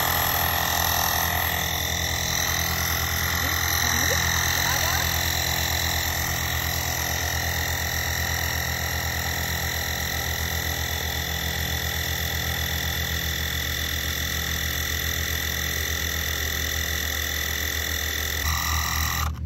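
Bosch EasyPump cordless tyre inflator running steadily with a fast pulsing compressor beat and a steady whine as it pumps up an aircraft tyre. Near the end it cuts off abruptly, switching itself off at its 24 PSI preset.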